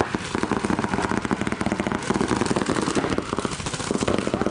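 Paintball markers firing in rapid, continuous streams, a dense run of sharp pops with no break.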